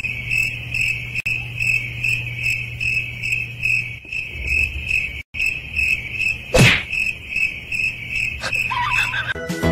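Insect chirping: a steady, evenly pulsing high trill over a low hum, with one sharp thump about two-thirds of the way through.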